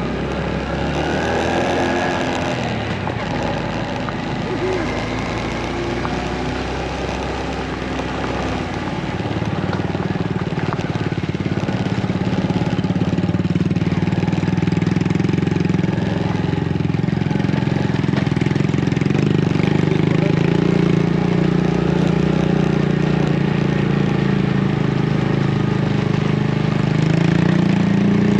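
Motorcycle engine running at idle, a steady engine note that grows louder about ten seconds in.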